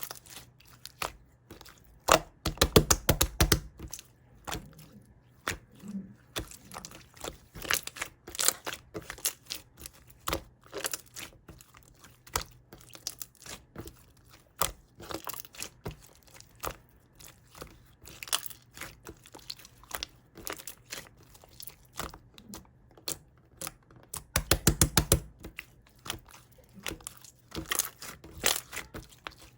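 Close-up chewing of raw honeycomb: sticky, crackling clicks of wax comb in the mouth, with two louder bursts of bites, about two and a half seconds in and near twenty-five seconds.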